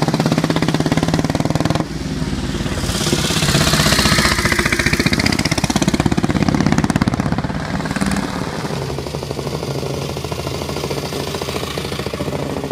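Böhmerland motorcycles' 600 cc single-cylinder engines running with a fast, even beat. The sound changes abruptly about two seconds and about eight seconds in.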